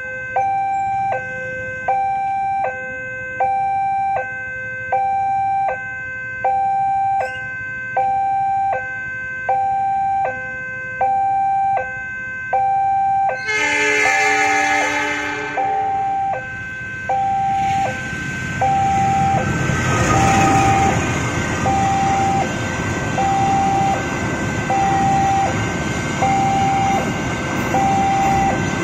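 Level-crossing electronic warning alarm sounding a steady alternating two-tone ding-dong, changing tone about every half second. About halfway through a train horn sounds for about two and a half seconds. Then the train passes with a rising rumble and rail noise, while the alarm goes on as a single repeating beep.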